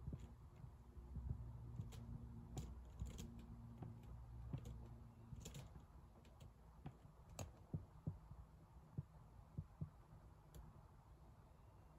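Near silence: faint room hum with scattered small clicks and ticks, a few slightly louder ones in the middle.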